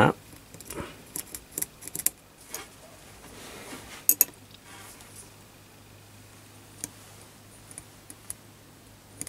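Light metallic clicks and taps as a small metal rule and a marker pen are handled against an aluminium die holder while marking lines are drawn on it. There is a quick run of small clicks in the first couple of seconds, two sharper clicks about four seconds in, then only scattered ticks.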